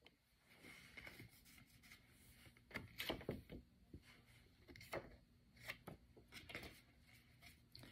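Faint handling noise in a small room: scattered rustles and light clicks as the phone is adjusted and paper note cards are handled, a little louder around three seconds in.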